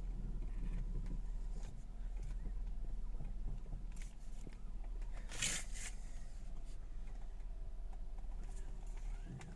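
BMW E46 320i's straight-six engine running steadily while the steering is turned, with faint clicks and a brief harsh burst of noise about five and a half seconds in: the turning noise from the front wheel area, which the owner cured by oiling the rubber boots at the wheel.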